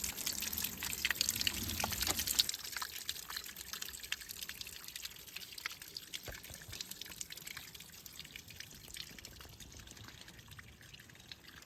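Small spring trickling and dripping over rocks, with many little splashes. It is louder for the first two seconds or so, then grows faint.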